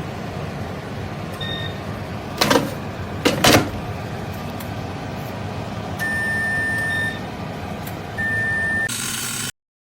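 Chefman dual air fryer running with a steady fan whir. A short faint beep comes about a second and a half in, then two sharp clacks, the loudest sounds, and later two longer beeps from the control panel, the first about a second long. The sound cuts off suddenly near the end.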